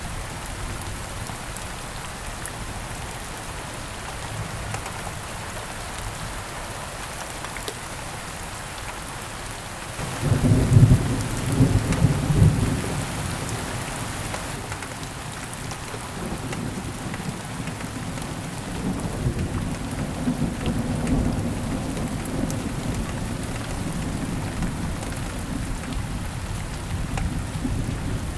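Steady heavy rain falling on rainforest foliage, with a sudden loud rumble of thunder about a third of the way in that rolls on for several seconds, then a second, softer roll of thunder later that fades back into the rain.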